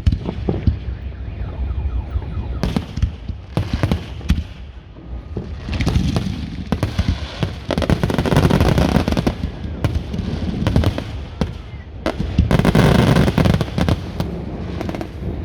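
Fireworks going off: a string of sharp bangs throughout, with two longer stretches of dense crackling, one about six seconds in and one near the end.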